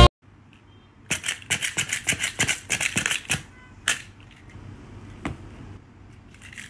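A quick run of sharp clicks, about five a second for a little over two seconds, followed by a few single clicks spaced out.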